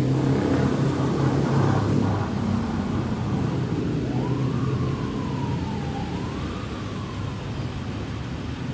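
A faint siren wails, rising and falling twice, from about four seconds in, over a steady low rumble that is heavier in the first two seconds.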